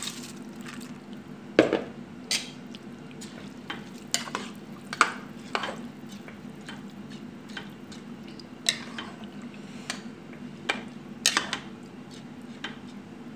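Metal slotted spoon stirring raw rice into tomato stock in a metal pot: irregular clinks and scrapes of the spoon against the pot, the loudest about a second and a half in, over a steady low hum.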